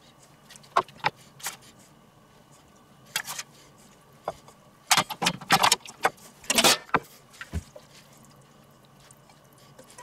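Metal spatula clinking and scraping on a stainless steel serving platter and china plates as melted-cheese burger patties are lifted onto their buns. A few sharp taps in the first half, then a quick run of clatter in the middle, loudest about two-thirds of the way in.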